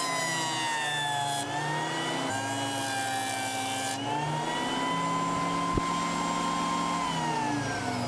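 Exmac 8-inch jointer planer running with a steady motor whine. The pitch sags about a second in, comes back up around four seconds, and falls again near the end, with stretches of high hiss over it.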